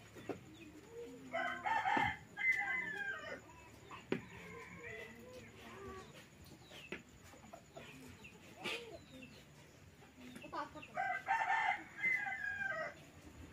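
A rooster crowing twice: one long call about a second and a half in and another near the end, with a few short knocks in between.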